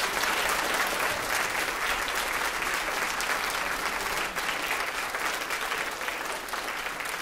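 Audience applauding steadily, a dense patter of many hands clapping that tapers slightly near the end.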